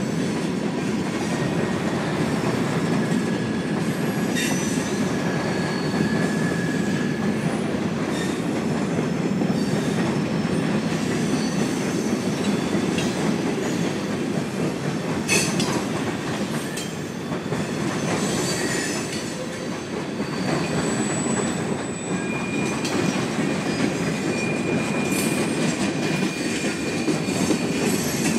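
Georgia Central mixed freight train's cars rolling steadily past: a continuous rumble of wheels on rail, with thin high wheel squeals coming and going and an occasional sharp clank, the loudest about fifteen seconds in.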